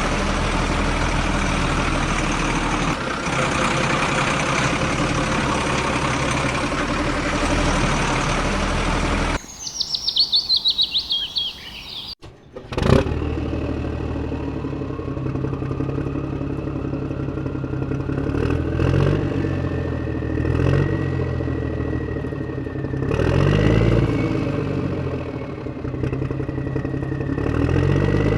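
Steady engine-like running sound, broken off about nine seconds in by a few seconds of repeated high bird chirps, then a sharp click and engine-like running again with a slowly rising whine and rhythmic swells.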